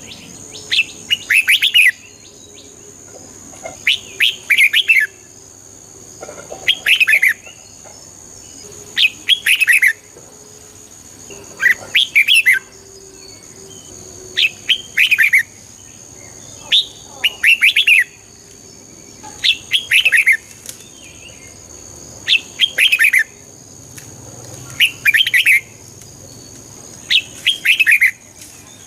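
Red-whiskered bulbul singing its short, bright, warbling phrases, one about every two and a half seconds.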